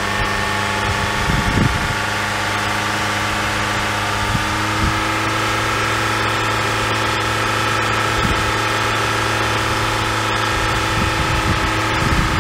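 Car engine idling steadily under its open hood while it charges a semi truck's dead batteries through jumper cables. A steady whine joins in about four seconds in.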